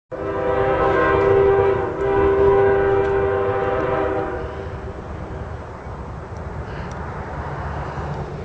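CSX ES40DC diesel locomotive's Nathan K5HL five-chime air horn sounding two long blasts, the second following right after the first about two seconds in. The horn ends about four and a half seconds in, leaving the low rumble of the approaching locomotive.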